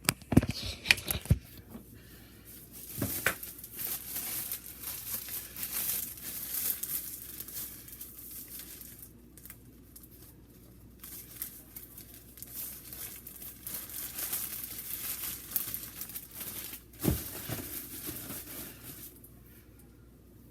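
Crinkling and rustling of packaging being handled, with a few sharp clicks near the start and a knock later on.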